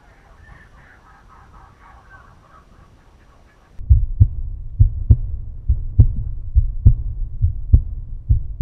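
Faint bird chirps over quiet bush ambience. About four seconds in, a loud, deep beat of outro audio cuts in: paired thumps like a heartbeat, about one pair a second.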